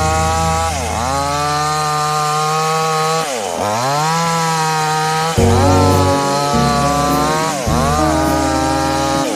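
A 58cc two-stroke chainsaw cutting wood: its pitch drops under load and climbs back about four times as it bites and frees in the cut. Background music with a stepped bass line plays under it.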